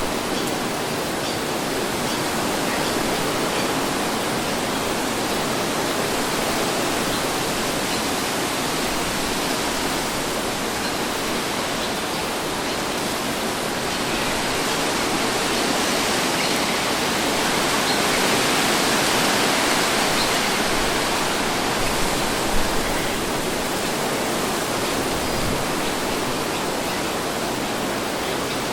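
Wind breeze sound effect: a steady rushing hiss that swells slightly for a few seconds about two-thirds of the way through.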